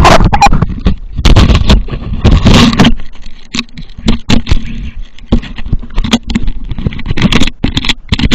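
Handling noise from a small camera being moved and gripped by hand: a loud, irregular run of knocks and rubbing against the microphone.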